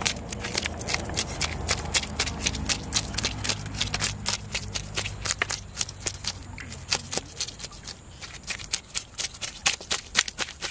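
A knife blade scraping the scales off a whole jelawat (Hoven's carp) on a plastic cutting board, in quick repeated strokes, several a second.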